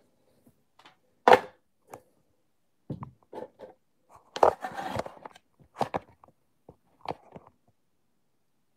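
Cardboard shipping box being handled and opened: the flaps and the packing paper inside rustle, with a series of short knocks and thumps, the loudest about a second in and again about four and a half seconds in.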